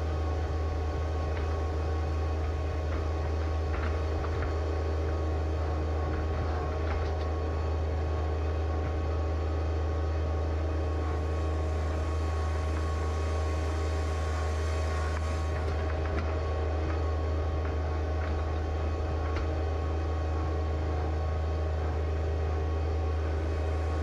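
John Deere 1025R compact tractor's three-cylinder diesel engine running steadily at a constant speed, with a strong low drone.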